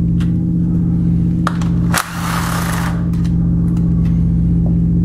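Handheld power tool running steadily while spinning out 10 mm transmission valve body bolts. It cuts off for a moment about two seconds in and starts again, with short rattling noise over the hum.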